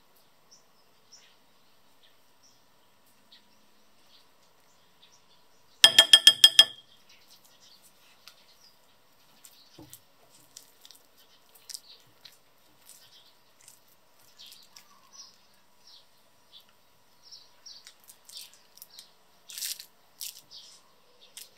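Faint scrapes and taps of a silicone spatula folding cake batter in a glass bowl. Then the rustle and crinkle of a plastic piping bag being filled near the end. About six seconds in comes the loudest sound: a short burst of about six rapid, high-pitched chirps lasting under a second.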